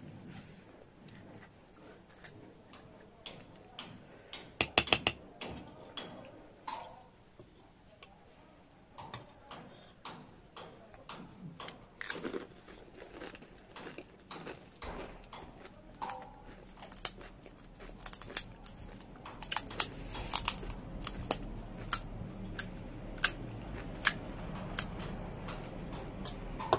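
Close-miked chewing and crunching of crisp pani puri shells, a string of short sharp crunches with a dense bunch about five seconds in and many more in the second half.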